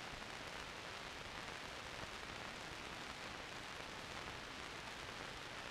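Steady hiss with no other sound: the background noise of an old film soundtrack between lines of narration.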